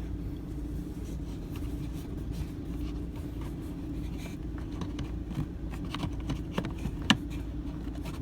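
Faint scraping and small clicks of a short flathead screwdriver working a screw into a plastic toilet valve, with one sharper click about seven seconds in, over a steady low hum.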